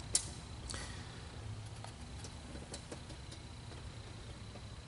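Faint steady low hum with a few light clicks and taps from handling, the sharpest just after the start.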